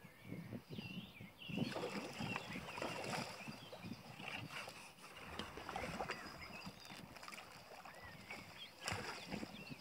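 Small birds chirping over irregular splashing, rustling and knocks from an angler playing a hooked fish and netting it.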